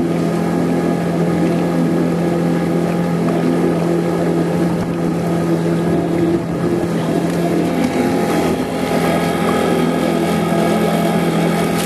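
Small outboard motor running at a steady pitch as it pushes an inflatable dinghy along, heard from aboard, with water and wind noise.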